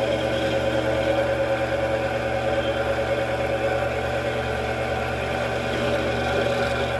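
Mini metal lathe running steadily as it turns a metal workpiece, a constant motor-and-gear hum with several steady tones on top.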